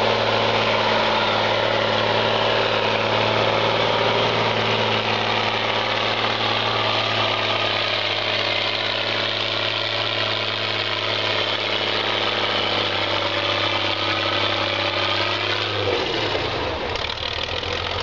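Praga V3S trial truck's engine running hard as the truck climbs a steep dirt slope, a steady high-revving drone; about two seconds before the end the revs drop and the note falls away.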